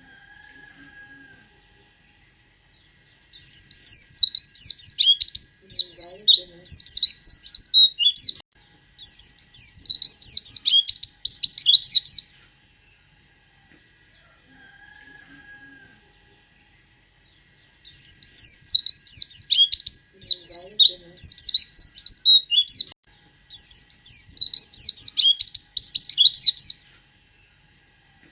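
A white-eye (pleci) singing fast, high chattering song in two long bouts of three phrases each, the first starting about three seconds in and the second about eighteen seconds in. The song is laced with mimicked sooty-headed bulbul (kutilang) phrases.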